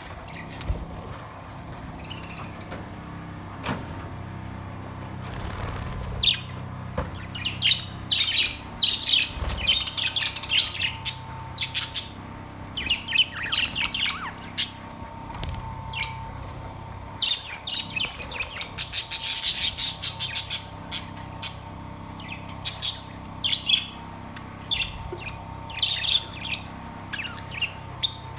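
Budgerigars chirping and chattering in many short calls, with a fast rattling run of calls about twenty seconds in, over a steady low hum.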